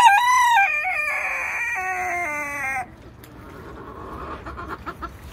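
A rooster crowing once, one loud call of nearly three seconds that steps in pitch and falls away at the end, then quieter clucking from the flock.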